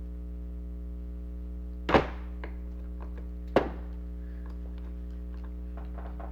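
Two dull thunks about a second and a half apart, from parts of an animatronic toy moose being handled and fitted back together, over a steady electrical hum.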